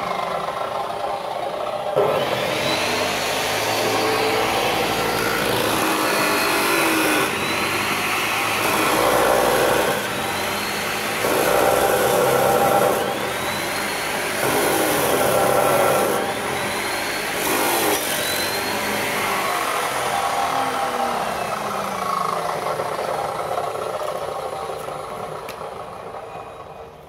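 Hitachi abrasive cut-off saw running and cutting through a steel flat bar, the grinding growing louder in several stretches as the disc is pressed into the metal. The sound fades away near the end.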